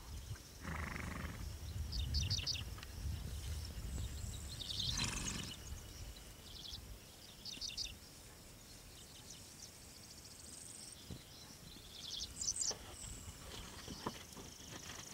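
Outdoor pasture ambience: short clusters of high chirps recur every second or two, over a low rumble in the first few seconds, with one louder brief burst about five seconds in.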